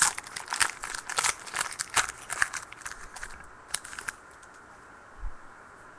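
Trading card pack wrappers being torn open and crinkled: a quick run of crackles that stops about four seconds in, followed by a soft low thump near the end.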